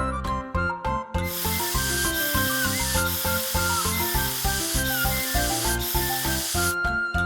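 Cartoon sound effect of a steady hiss, starting about a second in and stopping shortly before the end, over background music with a steady beat.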